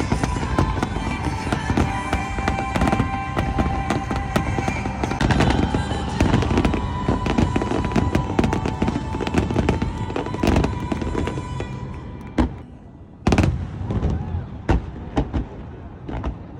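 Fireworks bursting in a dense, rapid run of bangs and crackles over music. About twelve seconds in the barrage thins out to a few separate loud bangs.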